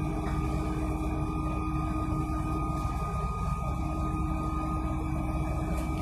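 Cabin noise of a bus under way: a steady low rumble of engine and road, with a steady high whine over it.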